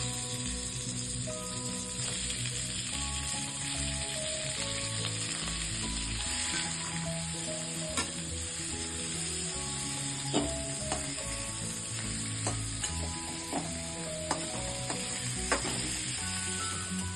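Food sizzling steadily in a hot pan as it is stirred, with a few sharp clinks of a utensil against the pan.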